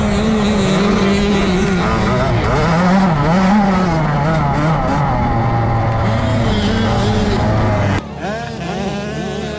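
GasGas MC65's small two-stroke engine revving hard under a rider, its pitch rising and falling between throttle and shifts, over rushing wind noise. About eight seconds in it cuts abruptly to quieter, more distant dirt-bike engines revving up.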